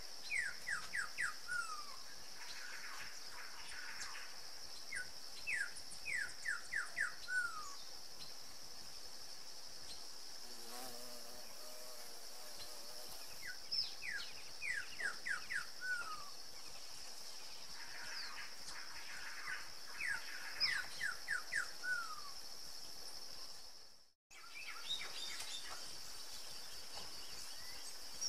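Rainforest insects keep up a steady high-pitched drone, while a bird sings the same short phrase every few seconds: four or five quick downward-slurred whistles followed by a lower slurred note. The sound drops out for a moment near the end.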